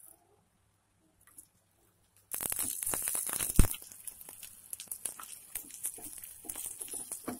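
Chopped onions and curry leaves frying in hot oil in a steel pan, sizzling and crackling. The sizzle starts suddenly about two seconds in, with one sharp pop a little later, then goes on as a steadier crackle with scattered pops.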